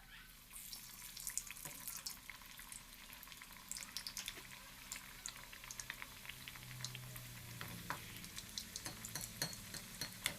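Potato smiley snacks frying in hot oil in a kadai: a steady sizzle dotted with many small crackles and pops, starting about half a second in.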